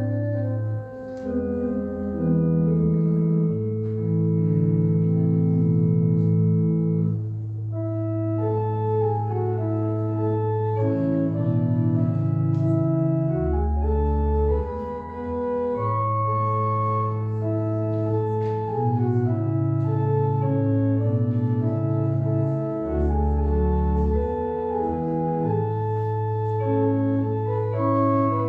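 Organ playing slow, sustained chords over held bass notes, the harmony changing every second or two.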